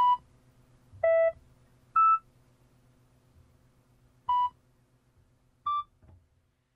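A sparse run of short electronic beeps at differing pitches, like single synthesizer notes, five of them a second or more apart over a faint steady hum. The sound cuts off near the end.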